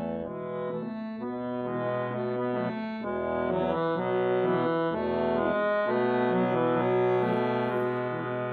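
Accordion (syrnai) playing a melody over held chords and bass notes, the notes changing every half second or so.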